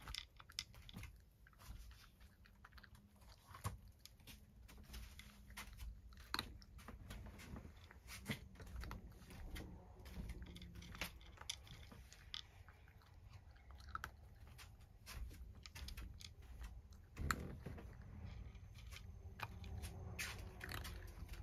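A cat crunching dry kibble: a steady, irregular run of small crisp crunches and clicks as it chews.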